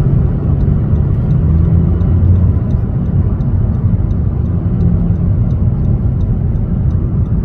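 Steady low road and engine rumble heard inside a moving car's cabin, with a faint regular ticking about three times a second.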